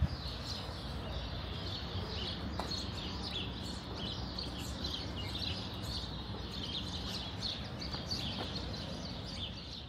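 Many small birds chirping continuously, dense and overlapping, over a steady low rumble.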